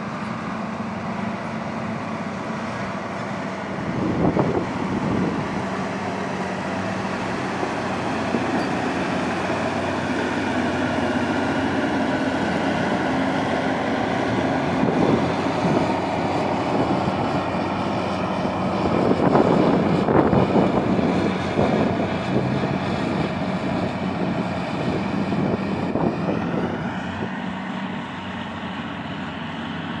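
Heavy diesel earth-moving machines running together: CAT D777 dump truck, CAT D9 bulldozer and CAT 16H motor grader. The engine noise builds and is loudest about two-thirds of the way through, when the grader is close by.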